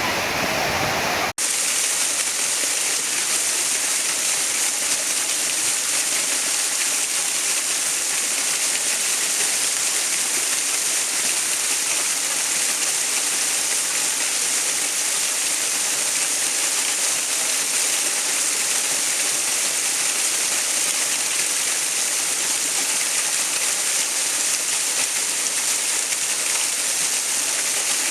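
Steady rushing water, an even hiss strongest in the treble. About a second in it cuts out for an instant and resumes with a brighter, thinner texture.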